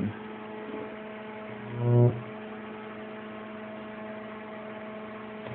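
Microwave oven transformer humming steadily at mains frequency, with a louder buzz that swells about two seconds in and cuts off sharply after half a second as a high-voltage arc is drawn and broken.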